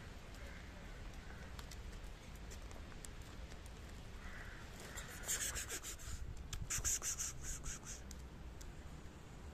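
Two cats eating wet cat food from a plate, with faint chewing and licking clicks, and two short bursts of rustling about five and seven seconds in.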